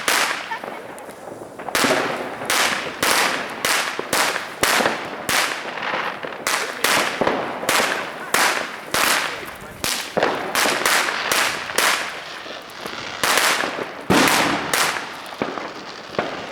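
New Year's Eve fireworks going off: a rapid, irregular series of bangs from exploding firecrackers and rockets, about two a second, each followed by a short echo. A short lull comes near the start before the bangs pick up again.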